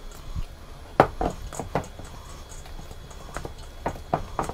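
Silicone spatula stirring thick flour batter in a stainless steel mixing bowl, knocking against the bowl in irregular clacks, the loudest about a second in.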